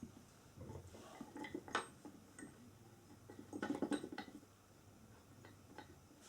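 Small metal clinks and clicks of an Allen key and bolts with spring washers being handled and turned during flat-pack chair assembly, in two short clusters with a few lone ticks near the end.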